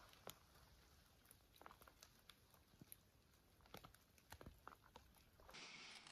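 Near silence, with faint scattered clicks and light rustles and a brighter hiss near the end.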